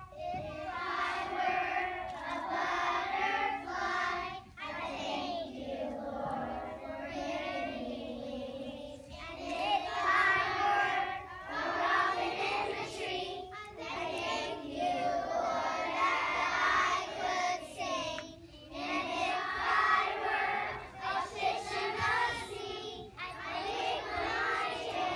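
A group of young children singing a song together, phrase after phrase with short breaks between lines.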